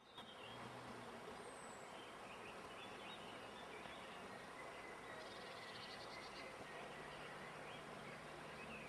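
Faint outdoor ambience: a steady hiss with birds chirping here and there, and a short fast trill about five seconds in.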